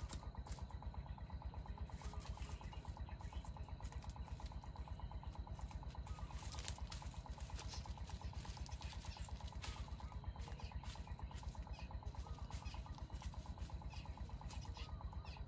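A small engine running steadily at idle, a fast even pulse, with a few faint clicks over it.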